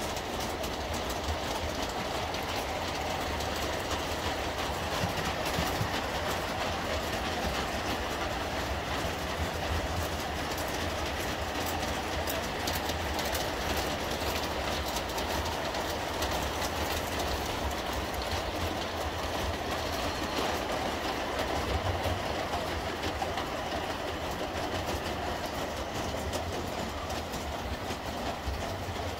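Large-scale model train, a model Krokodil electric locomotive hauling boxcars, running steadily along the track. Its wheels make a fast clicking over the rails, over a low running hum.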